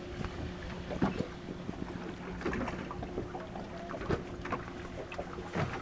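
A boat motor hums steadily at a low pitch while water laps and slaps irregularly against the hull, with some wind noise on the microphone.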